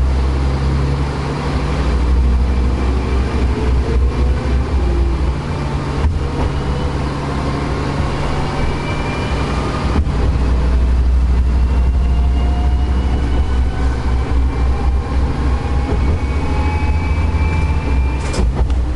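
Diesel railcar running along the line, heard from inside the cab: a steady low engine drone with a whine that climbs slowly in pitch as the train gathers speed. A few sharp clicks stand out over it.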